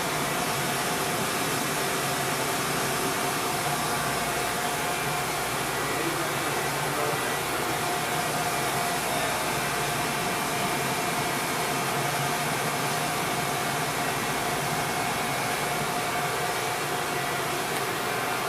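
Hardinge Hauser S35 CNC jig grinder running: a steady hiss with a faint, even whine.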